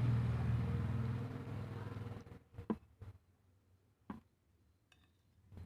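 A low droning hum fades out about two seconds in, leaving quiet broken by a few short clicks and taps.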